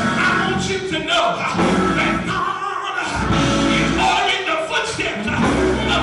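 Live gospel music in church: singing over instruments with a heavy low bass.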